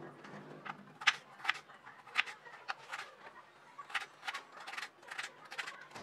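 Kitchen knife dicing peeled potatoes on a wooden cutting board: uneven, sharp knocks of the blade striking the board, about two or three a second.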